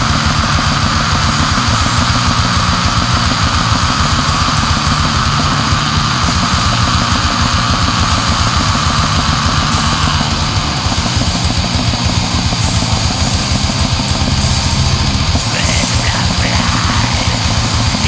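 Black metal recording: fast, dense drumming under a wall of distorted guitars and bass. Harsh vocals come in near the end.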